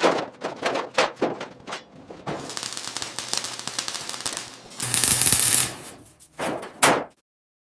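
Metalworking tool noises: a run of sharp irregular knocks and clatter, then a harsh hiss with a louder rasp about five seconds in. Two short bursts follow, and the sound cuts off abruptly about seven seconds in.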